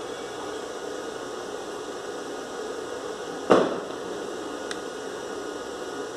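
Steady electrical hiss and hum, with one sharp knock about three and a half seconds in and a faint click about a second later.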